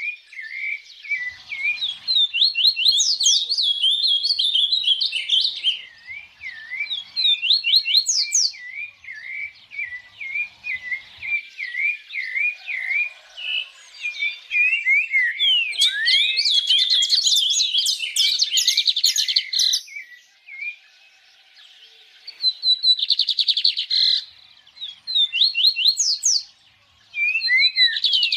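Songbird singing a long, fast run of chirps and sweeping whistled notes, pausing briefly about two-thirds of the way through before starting again.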